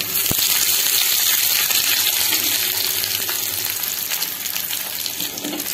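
Fresh curry leaves sizzling and crackling in hot oil in a small tempering pan with dried red chillies, the tadka for a chutney. The sizzle is loudest just after the leaves go in and slowly dies down.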